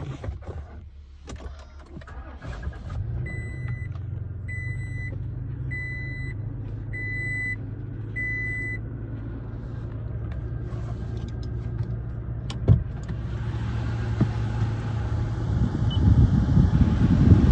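2022 Toyota Tacoma's 3.5-litre V6 running at idle, with the cab's warning chime beeping five times about a second and a quarter apart. A sharp click comes about twelve seconds in, and a louder rushing noise builds near the end.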